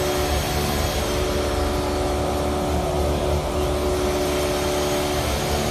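Steady drone of running machinery with a low hum, unchanging in pitch and level.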